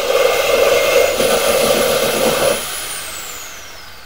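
Electric reciprocating saw cutting through the truck cab's metal, loud. It stops about two and a half seconds in, and its motor whine falls steadily as it winds down.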